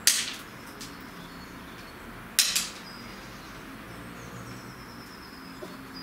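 Feral pigeon pecking at seed on a wooden bird feeder: a sharp tap at the start, a faint one just after, and a quick double tap a couple of seconds in. Faint, thin, high bird chirps come and go in the background.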